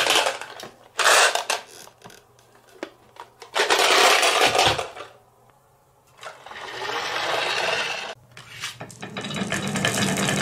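Glass marbles clattering and rattling against the plastic body of a toy garbage truck, in several bursts with short pauses between them. Near the end the marbles tip out onto a wooden wavy track and roll down it with a lower rumble.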